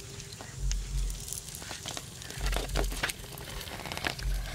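Wooden pestle pounding red chilies in a coconut-shell bowl: a dull thud about every two seconds, three in all, with small clicks and crackles between the strokes.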